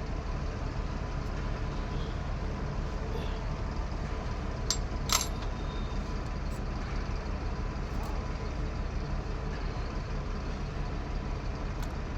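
Steady low engine drone, with a couple of sharp metallic clicks about five seconds in.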